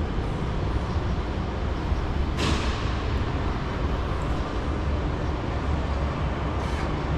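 Steady low rumble of background noise in a large aircraft hangar, with a short hiss about two and a half seconds in.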